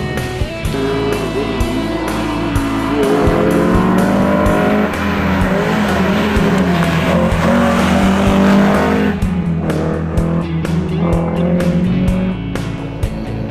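Music with a steady beat, mixed with a historic rally car's engine revving up and down through a bend. The engine and its noise cut off abruptly about nine seconds in, leaving mostly the music.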